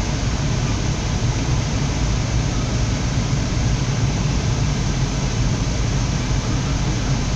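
Steady engine and road noise inside a moving vehicle's cabin, a constant low hum under a wide rushing noise.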